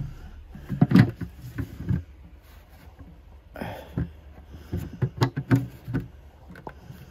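Irregular knocks and clatter of handling hard objects, in a run about a second in and again from about four to six seconds in.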